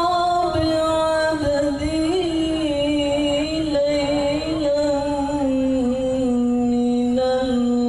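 Solo voice chanting an Islamic devotional song (sholawat) in long, ornamented melismatic phrases, ending on a long held, lower note.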